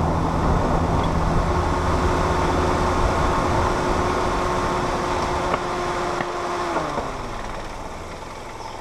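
Longboard wheels rolling on asphalt, with wind on the microphone, as a steady rumble. The rumble eases and a faint pitched whine slides down near the end as the ride slows to a stop.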